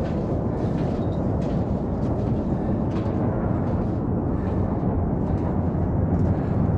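Wind buffeting the microphone, heard as a steady low rumble with no tone to it.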